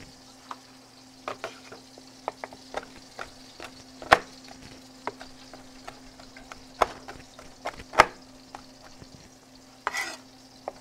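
Chef's knife chopping olives on a plastic cutting board: irregular sharp knocks of the blade on the board, a few much louder than the rest, over a steady low hum. Near the end the flat of the blade scrapes across the board, gathering the chopped olives.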